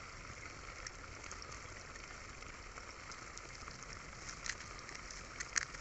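Faint steady hiss with a few brief crackles, the clearest a little before and just before the end, as fingers squeeze a tube of instant glue and press it into thermocol foam on a PVC pipe among dry grass.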